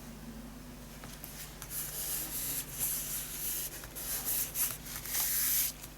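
Paper and card being rubbed and handled by hand: irregular scraping strokes that start about a second in, with the longest and loudest stroke near the end.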